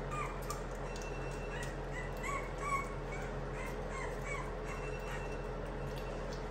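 French Bulldog puppy giving about ten short, high squeaky whimpers, some in quick pairs, while being dosed with liquid dewormer from an oral syringe, over a steady low hum.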